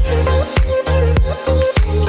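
Background music with a steady electronic dance beat: deep bass thumps, sharp percussion hits about three times a second, and a wavering melody line.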